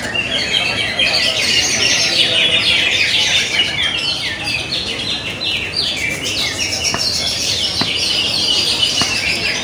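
Many caged greater green leafbirds (cucak ijo) singing at once: a dense, unbroken chorus of quick, overlapping chirps and trills.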